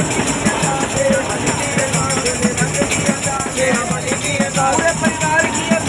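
A group of men singing together to a hand-held tambourine and a frame drum beaten in a steady rhythm, the tambourine's jingles shaking on each beat.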